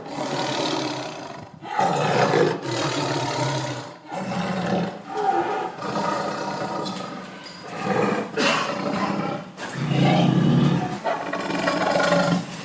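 A large zoo animal giving a series of loud, drawn-out calls, each a few seconds long, with short breaks between them.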